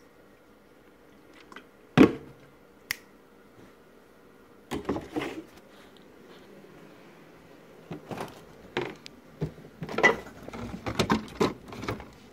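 Kitchen handling noises: a sharp knock about two seconds in, a small click soon after, then a scatter of knocks and rattles in the second half as the plastic juice bottle is handled and things in the refrigerator are moved.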